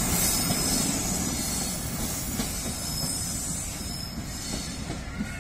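Passenger train's coaches rolling away along the track, the wheel-on-rail rumble fading steadily as the train recedes.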